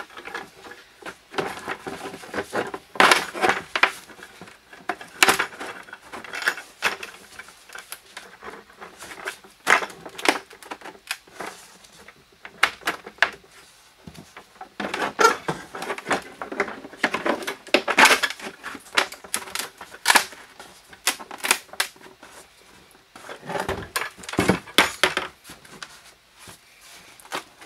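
Plastic clicking, knocking and scraping as 4-inch PVC 90-degree elbows are pushed and twisted tight into holes in a plastic 5-gallon bucket, with the bucket turned over on the workbench. The clicks come in irregular clusters with short pauses between.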